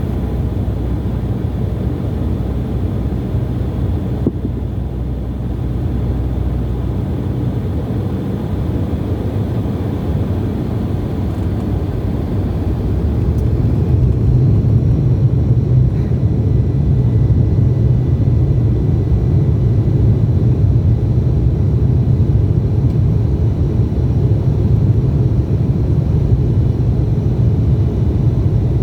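Jet airliner heard from inside the cabin: a steady low rumble of engines and airframe that grows louder about halfway through.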